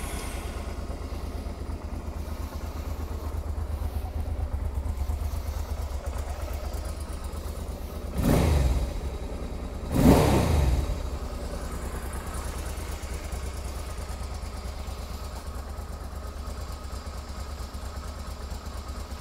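Honda NT650V Deauville's V-twin engine idling steadily, with two short throttle blips about eight and ten seconds in, the revs rising and dropping back each time.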